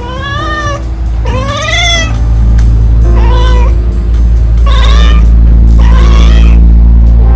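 A domestic cat meowing during mating: about five drawn-out calls, each under a second, rising and then falling in pitch. Background music with steady low notes runs underneath.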